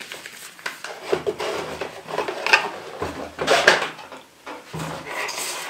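Cardboard box and paper booklets handled and set down on a wooden table: several separate bouts of rustling, scraping and knocking.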